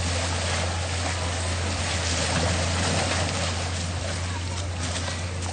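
Steady rushing of river water, with a low steady hum underneath.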